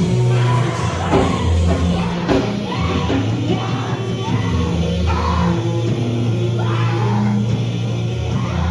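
Loud rock music: a heavy, sustained bass line with yelled singing over it.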